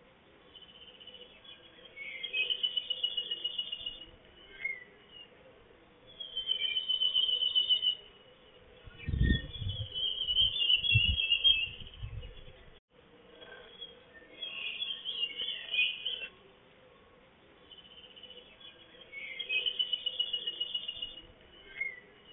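Repeated high trilling calls from a small animal, each about two seconds long and coming every four to five seconds. A few low thumps fall around the middle.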